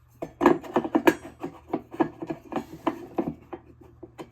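Hard plastic console parts being handled and fitted together: irregular clicks and knocks as the lid bracket is set in place, the loudest about half a second and a second in.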